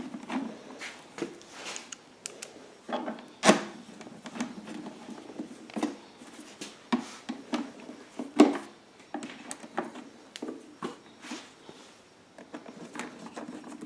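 Scattered clicks and knocks of a Honda EU1000i generator's plastic rear panel being handled and its screws started, with two louder knocks about three and a half and eight and a half seconds in.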